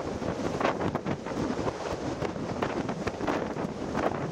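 Gusty wind buffeting the microphone, an uneven rushing that swells and drops every fraction of a second.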